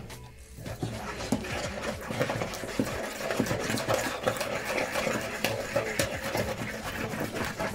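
Wooden spoon stirring red palm oil and potash water in a bowl as they are beaten into a thick, fluffy paste. It makes a quick run of small irregular scrapes and wet squelches that starts about a second in.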